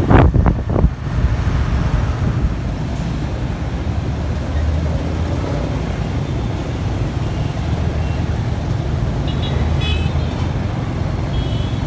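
Steady rumble of a moving motorbike in dense city scooter traffic, heard from the pillion seat with wind thumping on the microphone in the first second. A few short horn beeps sound near the end.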